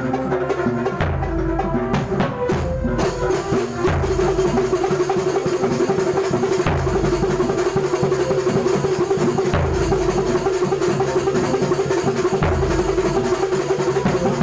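Kuntulan ensemble music: drums and hand percussion playing a busy rhythm under deep bass-drum strokes about every three seconds. A held melodic note comes in about four seconds in and carries on over the drumming.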